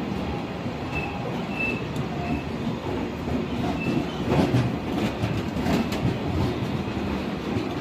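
Passenger train running on the rails: a steady rumble with a few wheel clicks over rail joints about halfway through and faint, brief high squeals.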